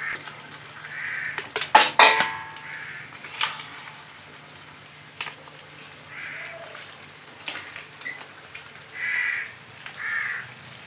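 Crows cawing several times, each a short hoarse call. About two seconds in, a steel ladle knocks loudly against the steel kadhai with a ringing clang, and a few lighter clinks follow as the curry is served.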